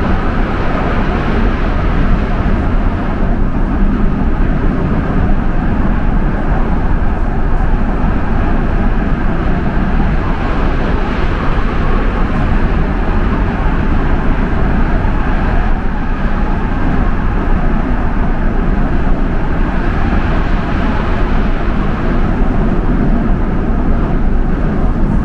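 Steady running rumble of an LRT-1 fourth-generation light-rail train, heard from inside the carriage, with no sudden changes.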